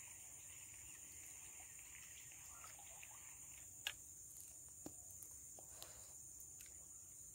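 Faint, steady high-pitched drone of insects such as crickets or cicadas, with a few short clicks about four, five and six seconds in.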